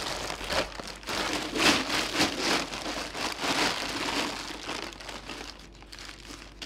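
Thin plastic grocery bag crinkling and rustling as it is pulled over and tucked around a wooden vessel on a lathe, loudest in the first few seconds and dying down near the end.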